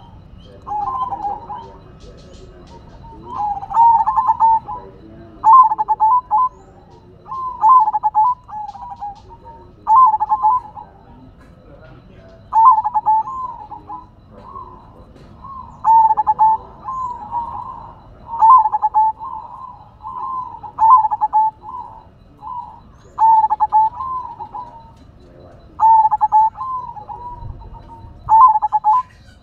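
Zebra dove (perkutut) cooing repeatedly: phrase after phrase, one every second or two, each a quick stuttering run of notes that ends in a held coo.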